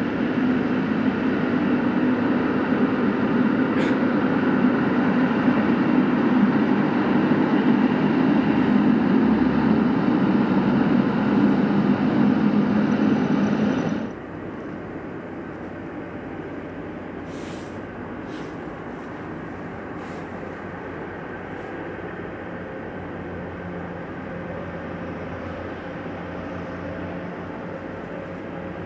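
Jet engines of a FedEx Boeing 777 freighter taxiing, a loud steady rumble and hiss. About halfway through it drops suddenly to a quieter, more distant engine noise with a few faint clicks.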